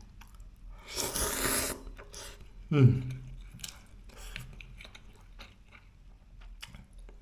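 A person eating: a loud slurp of soup about a second in, a short voiced hum just before three seconds, then quiet chewing with small clicks.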